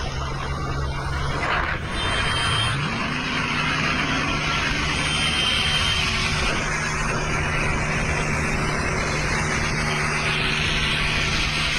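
Vehicles travelling at speed on a highway, including a New Holland 5500 tractor hauling a loaded trolley: a steady engine drone with road and wind noise, and an engine note rising about two seconds in.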